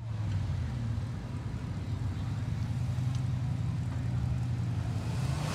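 Off-road buggy's engine running steadily at low revs, a low even rumble.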